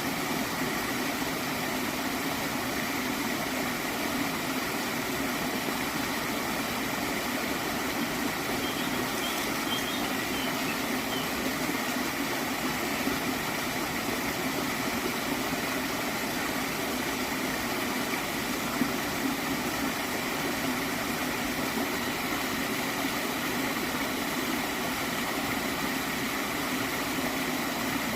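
Small stream of water flowing with a steady, even gurgling.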